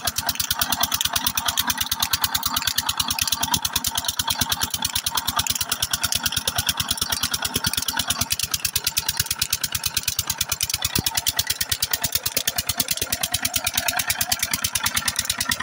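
Old single-cylinder 'Peter' diesel engine running steadily under load, driving a tubewell pump by a flat belt, with an even, rapid chugging beat of firing strokes.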